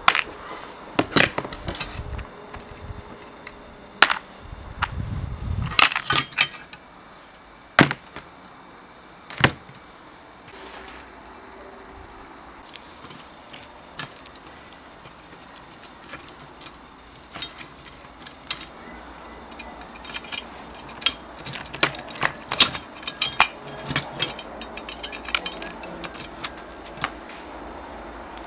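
Rusty steel parts of an old kitchen scale's lever mechanism clinking and knocking as they are handled and worked loose with pliers. The clicks are irregular, with a low thud about five seconds in and a busier run of clicks near the end.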